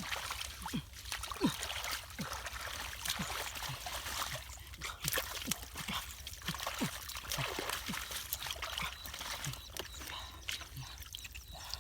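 Shallow floodwater splashing and trickling, with many small quick plops and drips throughout.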